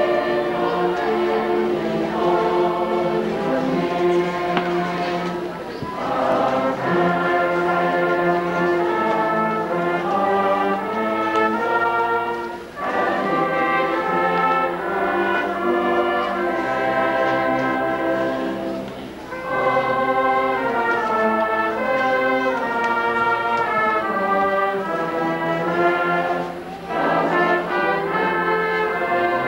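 Choir singing a slow piece in long held chords with instrumental accompaniment, in phrases of about six seconds broken by short pauses.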